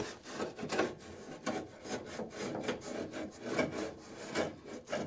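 A marking tool scratching along the edge of a truck's sheet-metal floor pan in a series of short, irregular strokes, marking out a line to be cut.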